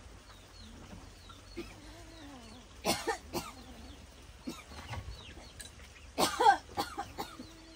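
A person coughing: one cough about three seconds in, followed by two smaller ones, then a louder, more voiced cough a little after six seconds.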